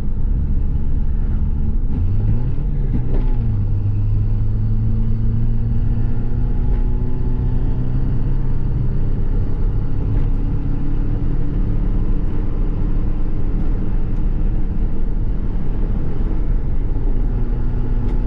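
Engine of a Volkswagen Gol quadrado with a CHT four-cylinder and a small turbinho exhaust, running under way at road speed. The engine note rises quickly about two seconds in, then holds a steady drone whose pitch drifts slowly.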